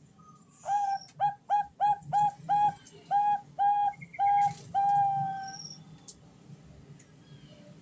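Female zebra dove (perkutut) cooing a call to a male: a run of about ten short, evenly paced notes, the last one drawn out longer.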